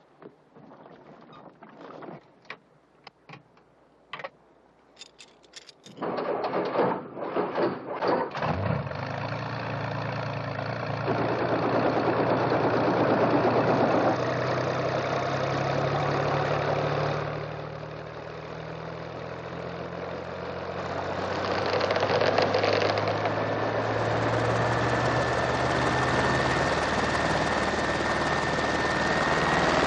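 Small piston helicopter's engine starting. A few scattered clicks come first, then about six seconds in the engine catches and runs, climbing in pitch as the rotor spins up, then running steadily.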